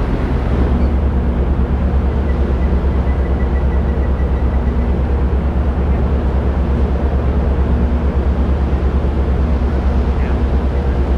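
Steady low drone of the ferry Confederation's engines and machinery with a fast, even throb, heard on board the ship.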